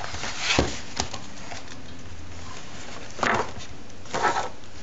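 Blu-ray case and its contents being handled: a few brief rustles and a light click over steady hiss.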